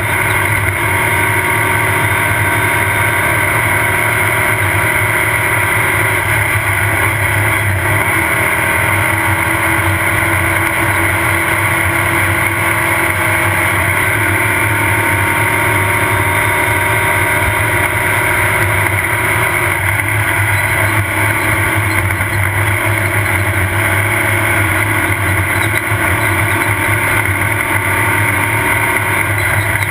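Off-road race car's engine running hard at steady revs, heard from on board, with no let-up or gear changes.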